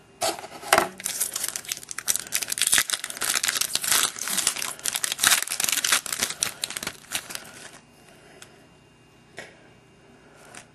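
Wrapper of a baseball card pack being torn open and crinkled, a dense crackling that stops about three-quarters of the way through, followed by one faint click.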